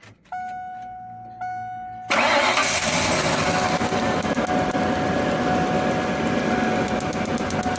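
A pitched chime sounds twice. About two seconds in, the Ford E150's V8 engine starts and keeps running, with a fast, even ticking over it. This is the new ignition coil firing across the spark tester's gap, set for 40,000 volts, a sign of a healthy coil.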